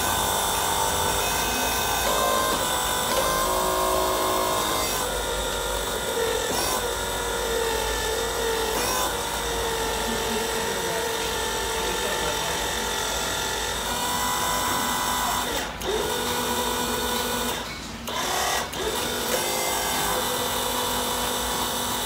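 Electric motors of a large ride-on toy excavator whining steadily as the boom and bucket move and dig into soil, the pitch stepping up and down as each motion starts and stops. The whine breaks off briefly twice near the end.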